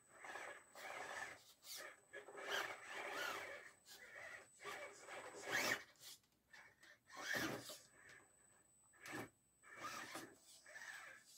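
RGT Bowler 1/10 RC crawler's electric motor and gears whining in short, irregular throttle bursts, with its tyres scraping and rubbing over wooden pallets as it climbs.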